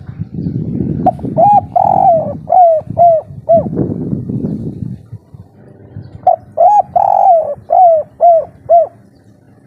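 A spotted dove singing its 'kuk 3' coo: two phrases, each a run of five or six short hooting notes with a lower muffled rumble around them.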